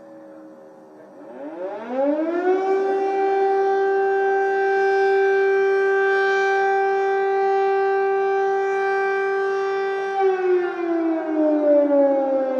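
Air-raid siren wailing, an air-raid warning: the pitch rises steeply, holds steady for several seconds, then slowly falls toward the end.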